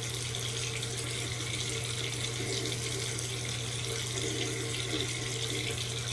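Water running steadily from a bathroom tap into a sink, with a steady low hum underneath.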